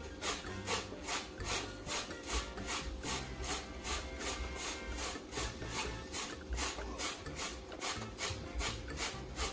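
A lemon being rubbed against a stainless steel box grater to grate off its peel: an even run of rasping strokes, a little over two a second.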